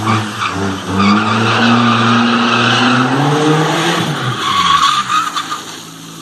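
Hyundai Genesis Coupe drifting: the engine revs up and down while the tyres squeal through the slide, and it all drops away near the end.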